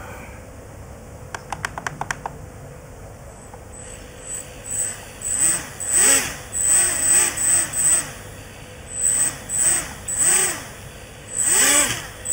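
The tiny coreless brushed motors of an Eachine H8 Mini quadcopter spinning up in short bursts, each rising and falling in pitch with a high whine, as the throttle is blipped on the transmitter. This shows that the quad has bound to the radio and is answering throttle. A few quick clicks come about two seconds in, before the motors start.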